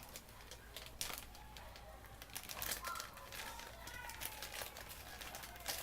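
Plastic packaging crinkling and rustling in short bursts as accessories are handled, with faint voices in the background.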